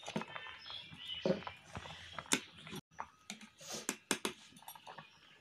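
Scattered light clinks and knocks of a metal tiffin box and cooking pot being handled as the box is lifted off the heat.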